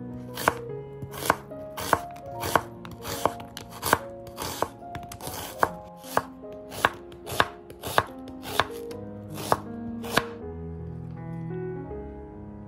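Chef's knife slicing through an onion onto a bamboo cutting board: about fifteen crisp strikes at an even pace, roughly one and a half a second. They stop about ten seconds in. Soft background music plays underneath.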